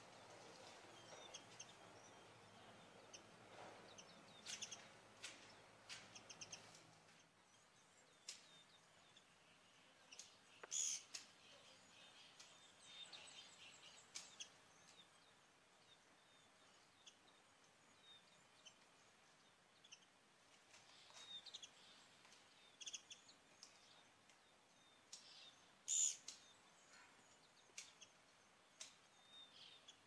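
Faint, scattered short high chirps and peeps from white-eye birds at a nest with chicks, loudest about 11 and 26 seconds in, over a faint background noise.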